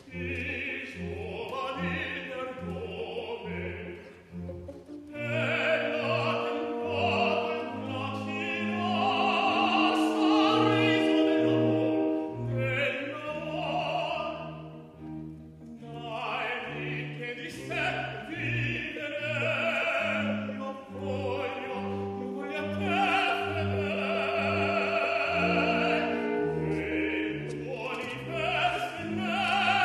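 A man singing an operatic aria with vibrato over an accompaniment with a steady low bass line.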